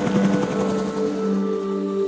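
Background music of sustained, held tones at several pitches. A fast fluttering pulse fades out within the first second.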